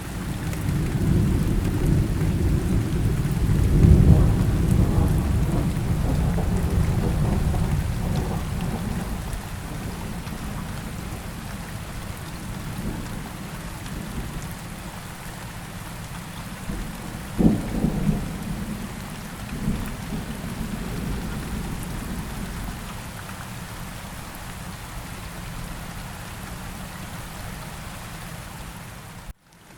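Steady rain with thunder: a long low rumble swells to its peak about four seconds in and slowly fades, then a sharper thunderclap comes a little past halfway, followed shortly by a smaller one. The audio cuts out briefly near the end.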